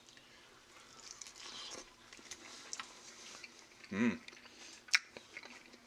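A person biting into and chewing a grilled chicken leg, with soft wet tearing and mouth noises. A brief hummed murmur comes about four seconds in, and a sharp click follows about a second later.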